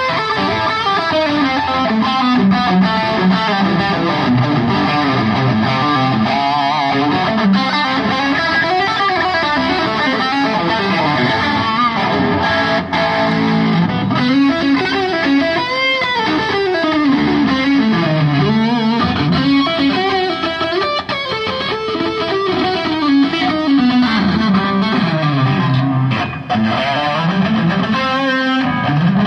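Distorted electric guitar played through effects, a lead line full of string bends that glide up and down, with wide vibrato on held notes.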